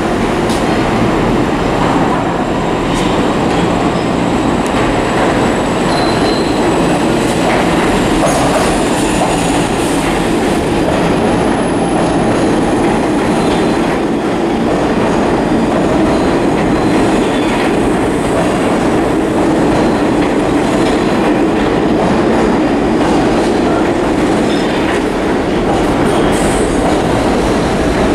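Subway train running through the station: a loud, steady rumble of steel wheels on the rails, with a faint high wheel squeal about a third of the way in.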